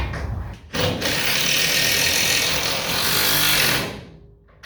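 A power drill running for about three seconds, then stopping.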